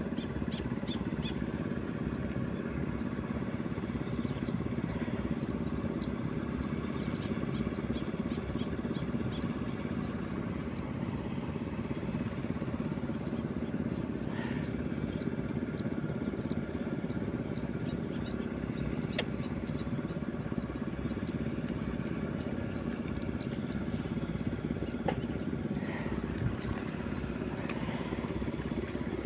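Steady low rumble of distant motor traffic, with motorcycles in it.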